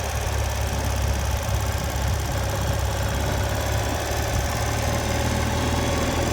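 Ural Patrol sidecar motorcycle's flat-twin engine running steadily at idle.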